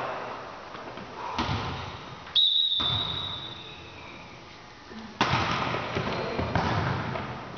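Indoor volleyball play echoing in a gymnasium. A high, steady whistle-like tone starts suddenly about two seconds in and fades over a second or so. A sharp ball strike comes about five seconds in, with another hit soon after.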